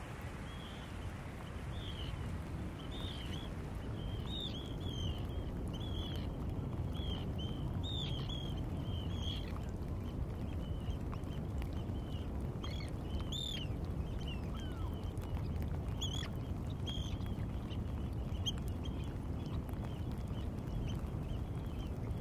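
Birds calling in many short, sharp, high notes, coming in loose quick runs and thinning out after the first half, over a steady low rush of wind and water: Wadden Sea tidal-flat ambience.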